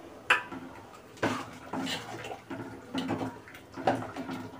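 A metal spatula clinks once against an aluminium pot, then stirs with several irregular wet scraping strokes as fried potatoes are mixed into the simmering rice and moong dal.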